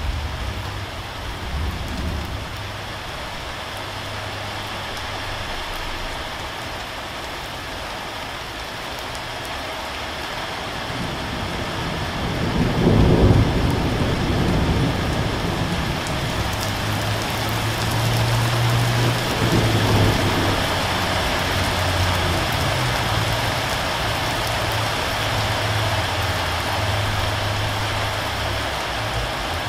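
Steady rain falling, with a rumble of thunder swelling about halfway through and a weaker rumble a few seconds later.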